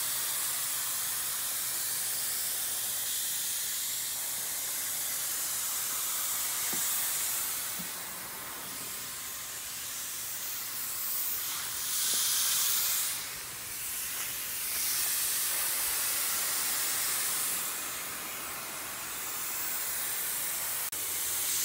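Handheld paint sprayer hissing steadily as it sprays Plasti Dip coating onto a car body, swelling louder for a moment about halfway through.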